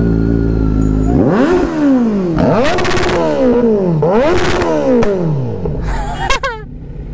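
Sport motorcycle engine idling, then revved three times, each rev climbing and falling back, with a quick sharp blip near the end.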